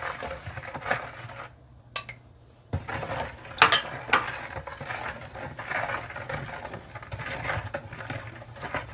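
White plastic spoon stirring oil into liquid in a plastic mixing bowl, scraping and knocking against the bowl, with a few sharp clicks, the loudest a little past the middle.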